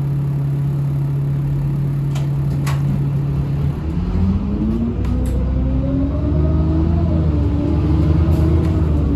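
City bus heard from inside: a steady hum while it stands in traffic, then, a little under four seconds in, its drive pitch rises smoothly as it pulls away and accelerates, levelling off near the end.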